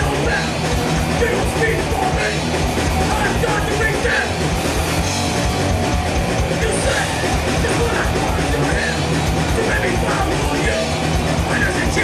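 Live heavy metal band playing loud and dense: distorted electric guitars and drums, without a break.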